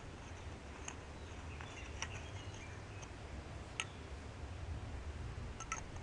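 A few sharp, scattered clicks and ticks as the head of a Duracell Durabeam Ultra flashlight is unscrewed from its metal body and screwed back on, over a low steady rumble.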